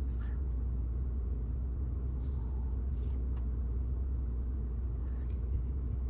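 Steady low background rumble, with a few faint small clicks about two, three and five seconds in.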